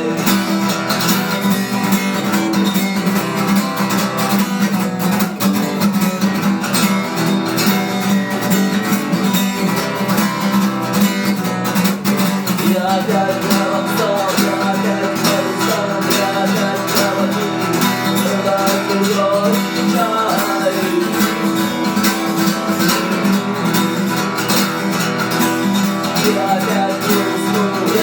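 Music: acoustic guitar strummed in a steady rhythm through an instrumental passage, without singing.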